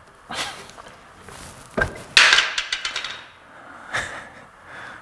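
A sharp knock on wood about two seconds in, then a short rasping scrape and a lighter knock near the end: hands-on work at a woodblock in a print studio.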